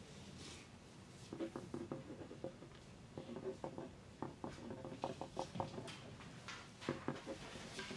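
Faint exam-room ambience: scattered light taps and scratches of pencils writing on paper at desks, in irregular clusters.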